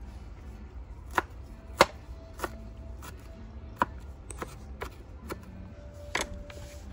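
A knife chopping on a cutting board in about ten sharp, irregular strokes, with a steady low rumble underneath.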